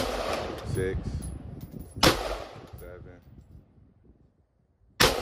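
AR-15-style rifle firing three single shots, spaced about two to three seconds apart, each with a short echoing tail.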